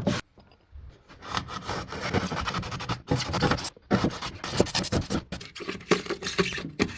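Irregular rubbing and scraping strokes with small knocks, as of materials being handled or worked, starting about a second in.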